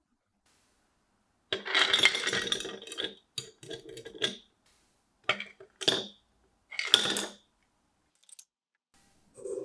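Ice cubes poured from a plastic container into a glass mason-jar mug. A clattering rush comes about a second and a half in, then single cubes clink against the glass a few more times, a second or so apart.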